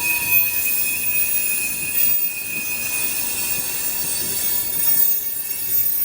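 Canadian National freight train rolling past with its wheels squealing against the rails: a steady, high-pitched screech over the rumble of the cars.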